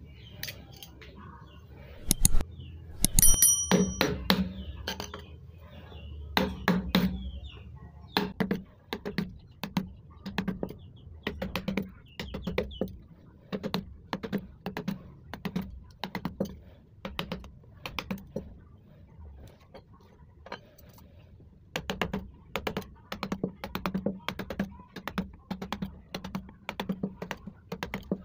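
Wooden mallet striking a steel carving chisel into teak, a steady run of sharp knocks about two a second, with a short pause about twenty seconds in. About three seconds in, a chisel clinks with a brief metallic ring.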